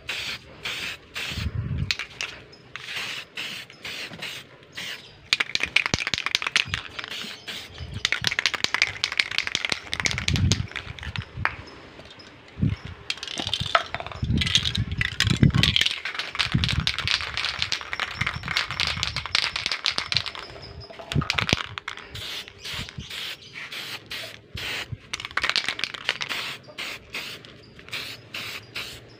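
Aerosol spray paint can spraying: long stretches of hiss broken by many short sputtering bursts, with a few low rumbles among them.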